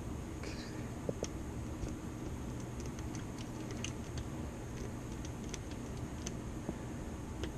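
Small, irregular metal clicks and ticks of a lock pick and tension wrench working the pins inside a dimple lock, over a steady background hiss.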